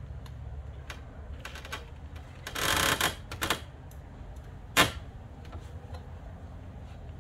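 Scattered clicks and rustling, with a louder rustle about two and a half seconds in and a single sharp crack a little before five seconds, the loudest sound, over a low rumble.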